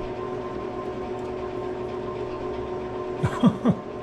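Steady hum with several fixed tones from a shop space heater left running, and about three seconds in a short voiced murmur from a person.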